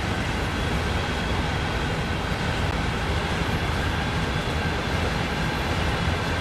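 CSX freight train running, a steady low-heavy noise with a faint thin tone above it and no horn or distinct wheel clacks.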